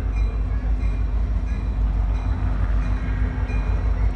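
Approaching diesel locomotive, a steady low rumble.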